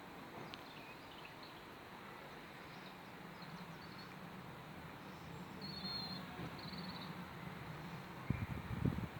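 A low, steady rumble in the sky, of a kind heard here for years with no identified source. It swells slightly in the middle, a bird chirps briefly about six seconds in, and a few loud low thumps come near the end.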